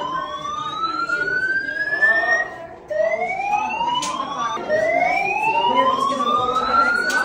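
Building fire alarm sounding its evacuation signal: a repeating slow rising whoop tone, each sweep climbing in pitch over two to three seconds before starting again low, with a short break just before three seconds in.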